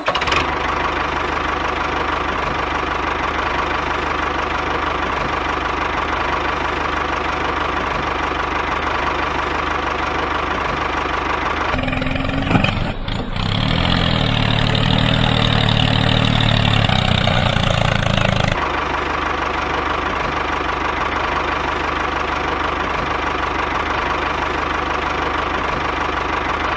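Small engine running steadily. From about twelve to eighteen seconds in it runs louder and heavier, as if working under load, then settles back.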